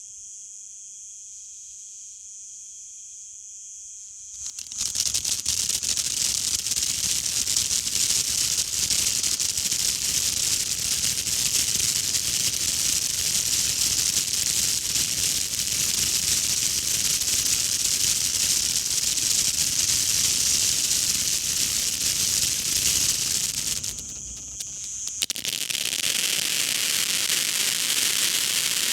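Fountain firework spraying with a loud steady hiss and fine crackle, starting about four and a half seconds in after a quiet stretch with only a faint high-pitched drone. Near the end it drops away for about a second, then picks up again.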